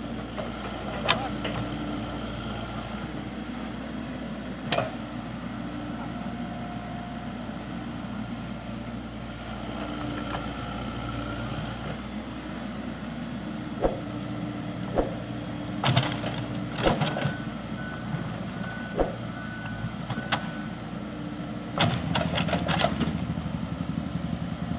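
Excavator's diesel engine running steadily, with scattered sharp metallic clanks and knocks from the machine working, which come thicker in the second half. A row of short, evenly spaced beeps sounds about two-thirds of the way in.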